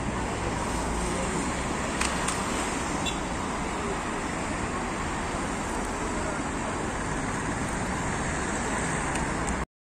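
Steady road traffic noise from cars driving along a busy city street, with a couple of faint clicks about two seconds in. The sound cuts off suddenly just before the end.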